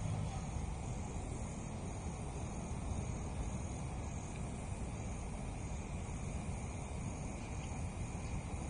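Steady outdoor night ambience: a low rumble with faint, high insect chirping.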